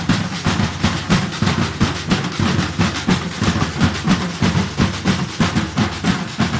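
Batucada-style drum group playing a rhythm together: low drum beats under a fast, even run of sharp snare-like strokes, keeping a steady repeating pattern.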